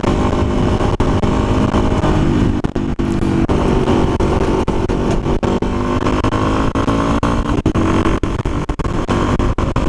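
Yamaha XT250's single-cylinder four-stroke engine pulling steadily at a fairly even pitch while the bike lane splits past traffic at speed. Wind rushes over the helmet-mounted microphone.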